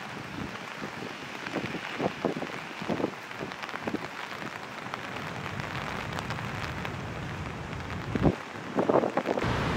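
Steady rushing noise of a swollen, fast-flowing river in flood, with wind buffeting the microphone in gusts, strongest near the end.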